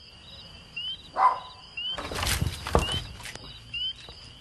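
Crickets chirping steadily in an evenly repeating pattern. A dog barks once about a second in, and a short rattling clatter with sharp knocks comes about two seconds in, the loudest sound here.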